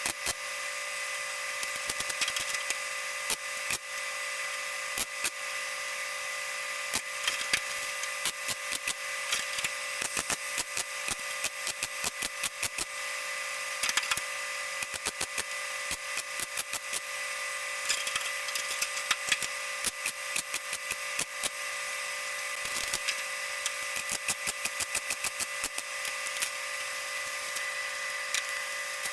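Welding arc crackling as a patch panel is stitch-welded into sheet-metal car body, in irregular bursts of sharp crackle with short pauses between them. A steady hum and hiss sit underneath.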